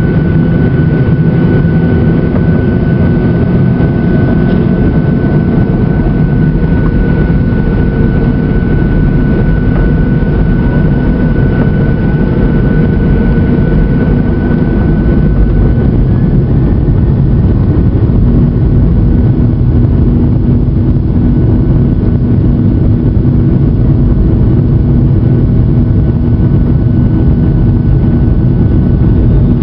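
Jet engine noise heard inside the cabin of a Boeing 737-800 on the ground, its CFM56 engines running steadily. A thin high whine fades out about halfway through, and a low hum grows a little stronger near the end.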